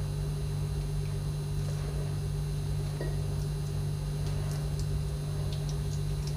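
A steady low hum, with faint soft scrapes and a few light clicks as a metal spoon scoops the flesh out of an avocado half.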